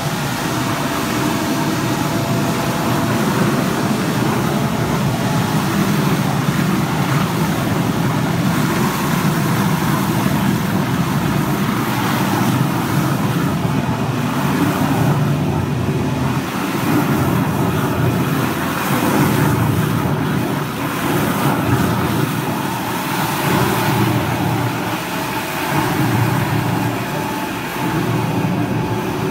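High-speed mixer running, its motor-driven shaft churning liquid in a stainless steel vessel: a steady, loud running noise that swells and eases every couple of seconds in the second half.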